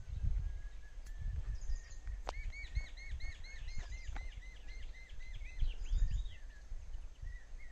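A small bird calling a quick run of repeated chirps, about four a second, for several seconds in the middle. A low rumble on the microphone runs underneath.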